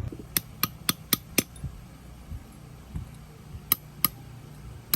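Hammer striking metal: a quick run of five blows about four a second, a pause, then two more blows and another near the end.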